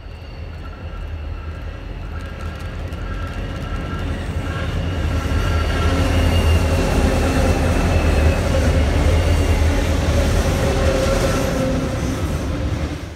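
Diesel-hauled container freight train passing close by: a heavy low rumble with a thin steady whine over it at first, building to its loudest in the middle as the locomotive and wagons go past, then cut off sharply at the end.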